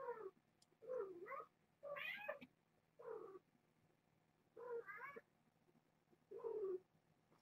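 A cat meowing over and over: six separate meows, each rising and falling in pitch, about a second apart at first and then further apart.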